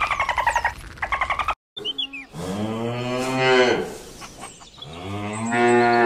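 Dolphin calls in quick pulsed buzzes with thin high whistles, cut off about one and a half seconds in. After a short gap comes a cow mooing twice, two long low moos.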